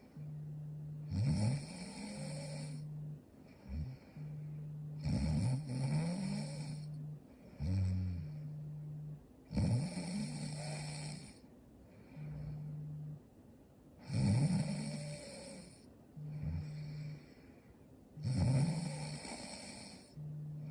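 A young woman snoring in her sleep: a rough snore about every four to four and a half seconds, five in all, each lasting one to two seconds.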